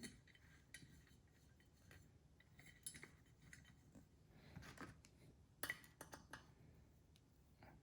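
Faint, scattered small metal clicks and clinks of a hand screwdriver driving screws into an LED par light fixture.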